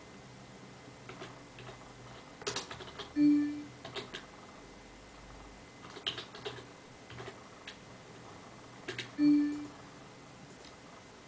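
Computer keyboard typing: irregular clusters of key clicks. Two short steady tones about six seconds apart are the loudest sounds.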